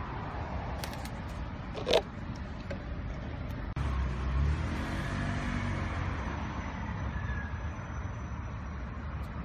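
Steady low rumble of road traffic, with a vehicle engine passing louder a little before the middle. A single short, sharp sound about two seconds in.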